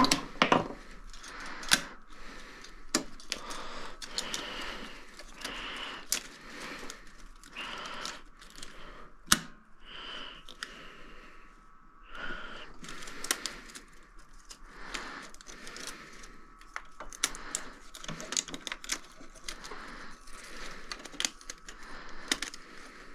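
Irregular clicks, taps and light metallic rattles of hands working on a sound film projector and its reels, with short bursts of heavy breathing close to the microphone.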